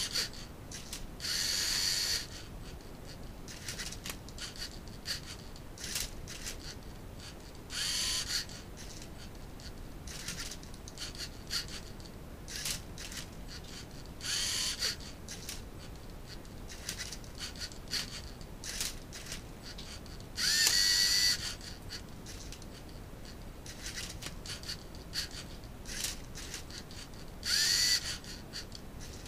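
LEGO Mindstorms NXT servo motors and gears of a Rubik's cube solving robot whirring in five short bursts, about every six seconds, as it turns and tilts the cube; two of the bursts start with a brief rising whine. Light plastic clicks and knocks of the LEGO parts and the cube fall in between.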